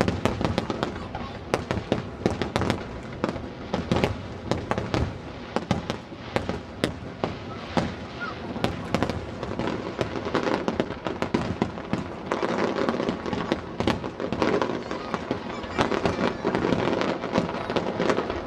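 Aerial fireworks display: shells bursting in quick succession, several sharp bangs a second overlapping one another with no break.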